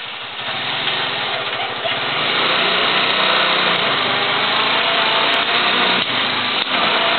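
An engine running steadily, growing louder about two seconds in.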